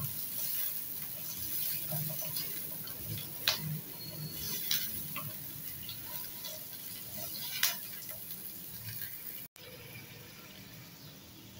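Sliced carrots and capsicum sizzling in oil in a nonstick wok while being stir-fried, a steady hiss with a few sharp clicks of the spatula against the pan. The hiss drops quieter about nine and a half seconds in.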